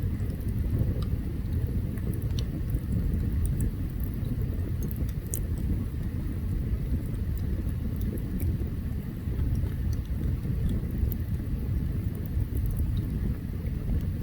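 Open wood campfire burning: a steady low rumble with scattered sharp crackles and pops.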